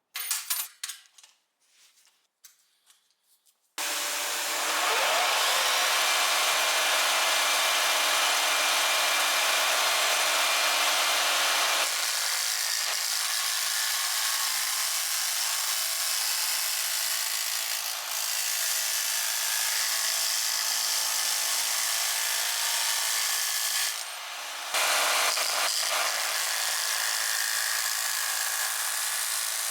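A few clicks and knocks, then an electric jigsaw mounted under a jigsaw table starts suddenly about four seconds in and runs steadily, sawing through wood. Its sound falls away briefly about three-quarters of the way through, then picks up again.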